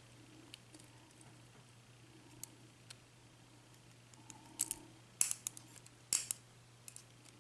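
Small metal lock parts and tools being handled, giving light scattered clicks and ticks, with a few sharper clicks in the second half, as the pins are worked out of the cylinder.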